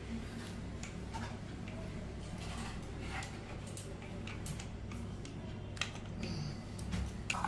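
Light, irregular clicks and taps of a stainless-steel cup knocking against a steel bowl as its contents are tapped out onto marinating chicken, over a low steady hum.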